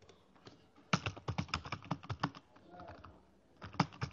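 Typing on a computer keyboard: a quick run of keystrokes starting about a second in, a short pause, then a few more keystrokes near the end.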